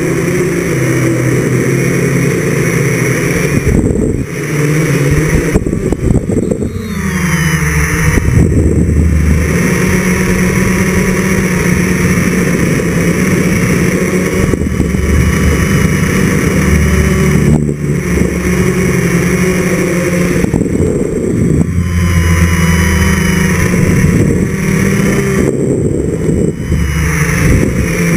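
A quadcopter's four brushless motors (NTM Propdrive 28-26) and propellers whirring loudly in flight, the pitch rising and falling with throttle changes, with a sharp drop in pitch about six to seven seconds in.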